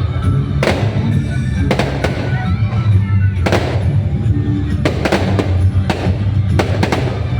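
Fireworks going off over loud show music with a heavy bass: a string of sharp bangs at irregular intervals, roughly one or two a second.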